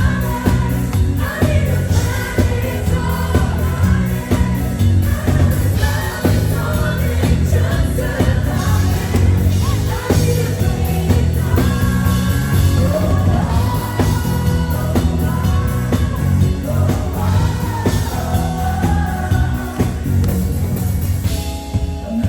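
Live pop music: a woman singing over a full band with a steady drum beat and heavy bass.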